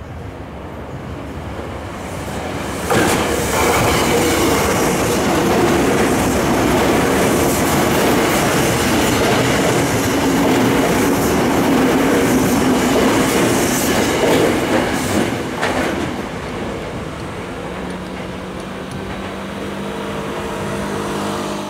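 Tokyo Metro 7000 series electric train running past close by. It builds up, turns loud and steady about three seconds in as the cars pass, then fades after about fifteen seconds. Near the end a steady pitched tone rises over the quieter train noise.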